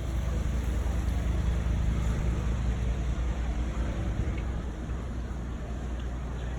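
Steady low machine rumble under a haze of outdoor noise.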